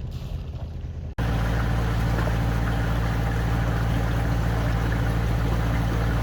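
Wind and water hiss, then an abrupt cut about a second in to a boat engine running steadily at a constant pitch.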